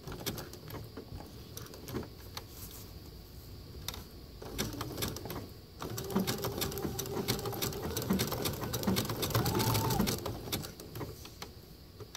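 Computerized sewing machine stitching a raw-edge appliqué, the needle clicking rapidly over the motor's whine. It runs in short stretches and is loudest between about six and ten seconds in.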